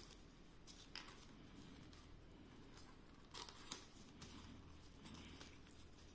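Near silence with faint handling sounds of a plastic Blu-ray case and cardboard 3D glasses: a few light clicks and rustles, two clicks close together about three and a half seconds in.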